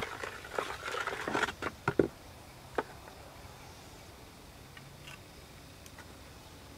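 Light knocks and wet splashes of a hand and spoon working liquid clay slip in a plastic basin, an irregular run in the first two seconds, then quiet with a few faint ticks as the slip is poured.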